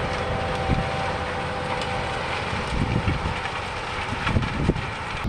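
John Deere 6150R tractor running steadily as it pulls a reversible plough through dry stubble, with a few short knocks near the end.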